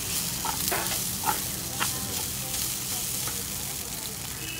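Maggi instant noodles sizzling as they fry in a blackened pan, stirred with a steel spoon that gives a few sharp clinks and scrapes against the pan.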